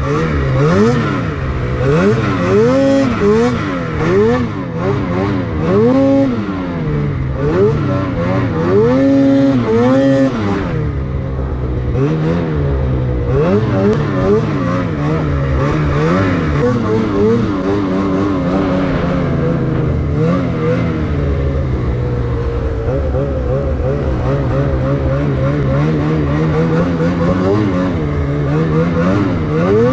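Lynx Boondocker snowmobile's 850 E-TEC two-stroke engine under way in deep powder, revving up and down in quick throttle blips for the first ten seconds or so, then holding a steadier throttle with smaller swings.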